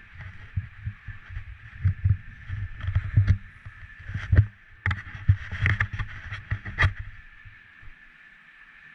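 Skis scraping and chattering over chopped-up, tracked snow, with irregular low thumps and several sharp knocks as they run over the ruts and lumps. The sound eases off about a second before the end.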